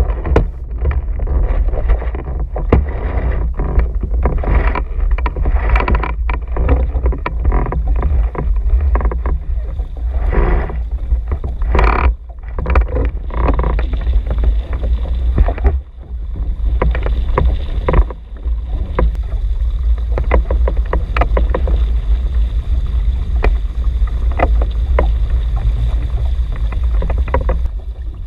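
Sailing outrigger canoe under way in strong, gusty wind: a heavy, constant low rumble of wind buffeting a mast-mounted camera's microphone, over water slapping and splashing against the hull and outriggers, with frequent short knocks.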